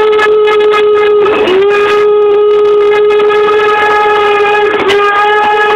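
Steam whistle of Strasburg Rail Road locomotive No. 475 blowing one long, loud, steady blast as the train passes, sagging in pitch for a moment and re-sounding twice.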